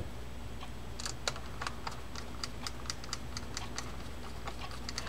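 Light, irregular metallic clicks and ticks, a few a second, as small Phillips-head screws are set and turned into the side plate of a Daiwa Sealine 47H fishing reel with a screwdriver.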